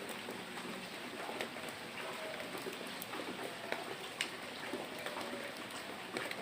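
Steady rain falling, with scattered individual drops ticking sharply on a surface.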